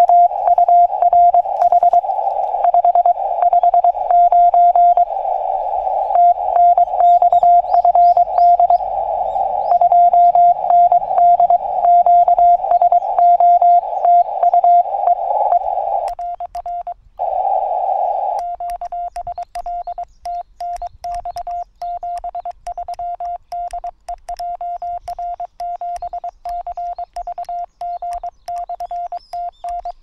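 Morse code tones from a Yaesu FT-818ND transceiver, a single pitch keyed in dits and dahs. For the first half it is a received CW signal with static hiss around it. From a little past the middle it gives way to a cleaner, quieter sidetone with the click of a paddle key on each element as the operator sends.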